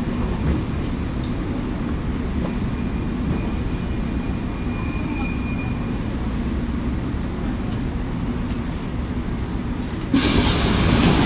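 Subway train running on the rails: a steady low rumble of steel wheels under a high, steady wheel squeal, which fades out near the end. About ten seconds in a sudden loud hiss starts.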